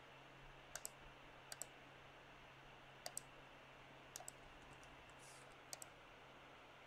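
Faint computer mouse clicks, mostly in quick pairs, five or so times over a near-silent background hum, typical of placing circles point by point in a CAD sketch.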